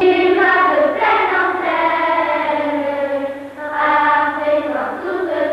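A class of children singing together in unison in long drawn-out phrases, with a short break about three and a half seconds in.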